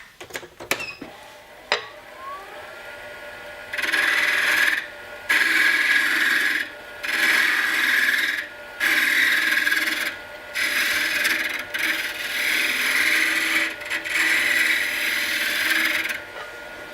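Wood lathe spinning up with a steady whine, then a turning tool cutting a small hardwood knob in six or seven hissing passes of a second or two each with short pauses between, shaping a chamfer on its top. The lathe winds down near the end.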